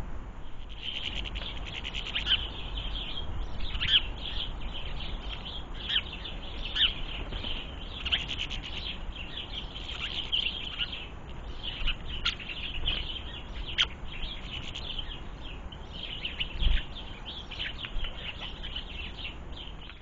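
Small garden birds at a seed feeder chirping and twittering in a steady stream of short, quick calls, with one low thump a few seconds before the end.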